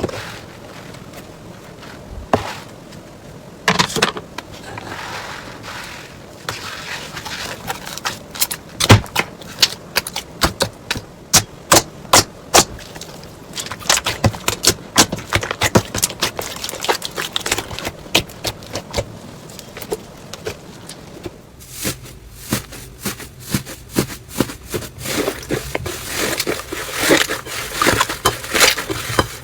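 Slime being squeezed and poked by hand, giving irregular crackles and sharp pops that come thicker from about a third of the way in.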